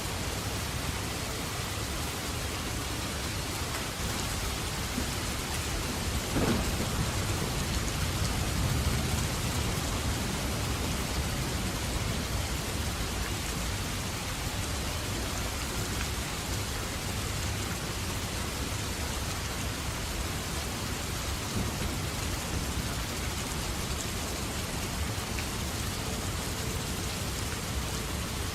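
Steady heavy rainfall in a thunderstorm, with one crack of thunder about a quarter of the way in that rumbles low for a few seconds before fading back into the rain.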